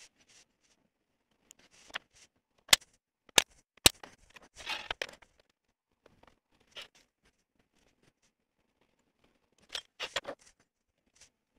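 Aluminum plate and a steel rule being handled on a wooden workbench: three sharp metallic clicks in quick succession about three seconds in, a short scraping slide just after, and a brief clatter near the end.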